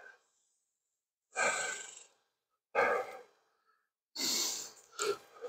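A man breathing heavily near the microphone: four breaths, the first three about a second and a half apart and the last coming sooner, each fading off.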